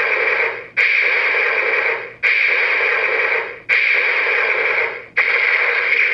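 Electronic sound effect played from the CSM Den-O Belt toy's small speaker: a hissing burst that starts sharply and fades, repeated four times about every second and a half.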